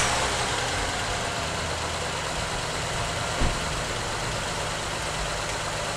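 2007 Honda Pilot's 3.5-litre V6 idling steadily just after starting, with one short thud about three and a half seconds in. It runs smoothly without the lawnmower-like popping, now that the blown-out spark plug has been reinstalled and the ignition coil replaced.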